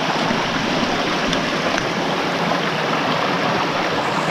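A shallow mountain stream running over and between boulders, a steady rushing, babbling flow of water.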